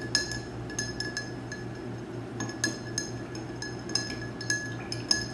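Metal bar spoon stirring in a glass mixing beaker, clinking against the glass several times a second at an uneven pace, each tap ringing briefly; the jam is being stirred to dissolve into hot water.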